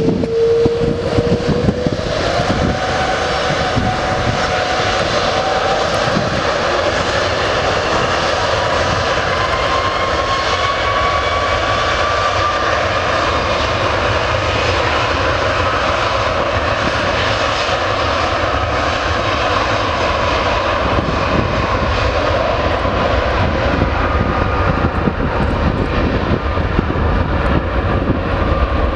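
Airbus A330-300's twin Rolls-Royce Trent 700 turbofan engines spooling up to takeoff thrust. A rising whine climbs over roughly the first dozen seconds, then the engines run loud and steady at full power through the takeoff roll.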